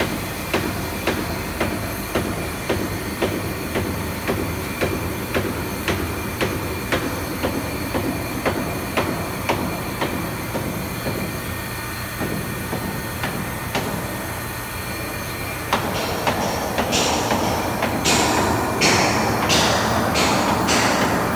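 CNC foam cutting machine running, with a regular clicking a little over two times a second over a steady mechanical noise. About 16 seconds in, a louder hiss joins, with several short, sharp bursts of it near the end.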